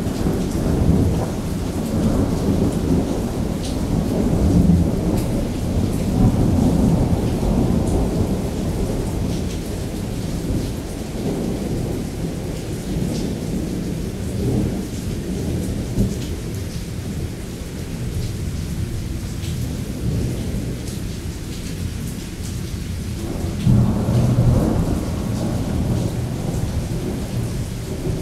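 Thunder rumbling and rolling over steady heavy rain. The rumble swells several times, dies down in the middle, and a fresh roll of thunder starts about 24 seconds in.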